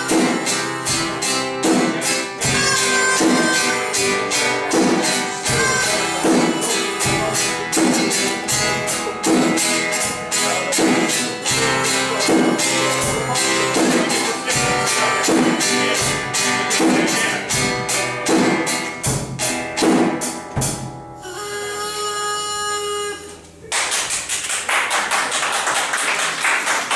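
Live instrumental band music: a nylon-string acoustic guitar with drums and percussion playing a steady beat. About 21 s in, the beat stops and a sustained chord rings for a couple of seconds, then fast, hard strumming on the acoustic guitar begins.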